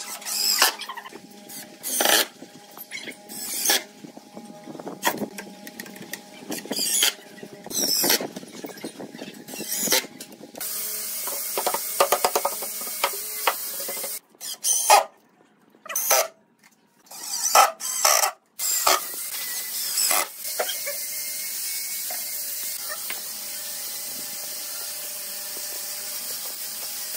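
Cordless impact driver driving screws into pine boards in repeated short bursts, each a second or less. Near the end the bursts give way to a steady hiss.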